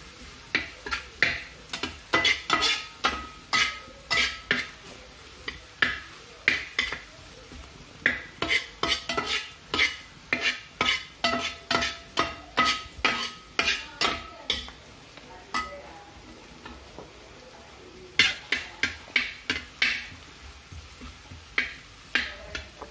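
Metal spoon stirring and scraping onions and spices frying in a pan. It knocks against the pan about twice a second with short ringing clinks over a faint sizzle, and stops for a couple of seconds about two-thirds of the way through.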